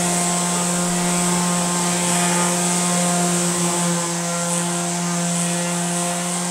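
Handheld electric random orbit sander running steadily as it is worked over a plywood panel: a constant motor hum and whine that holds one pitch throughout.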